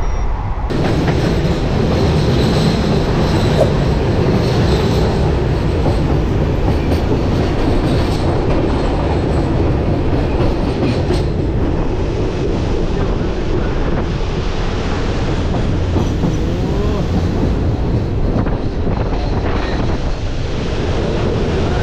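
Express train running at speed: a steady rumble of the wheels on the track with scattered rail-joint clicks.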